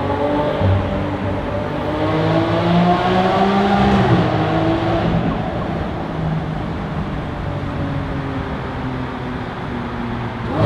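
Car engine accelerating, its pitch rising steadily for about four seconds, then easing off to a steadier drone.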